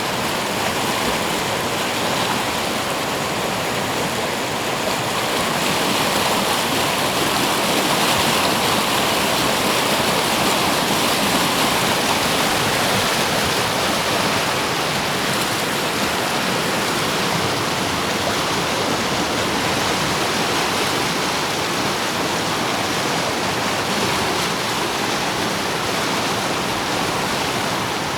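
Fast mountain river rapids churning and foaming: a loud, steady rush of white water that drowns out a voice.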